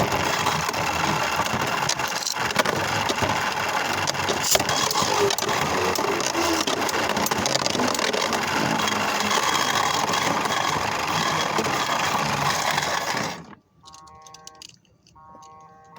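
Small electric toy motor running steadily in a plastic Beyblade battle stadium, with plastic rattling and scattered clicks as the spinning tops knock about. The noise cuts off abruptly a few seconds before the end.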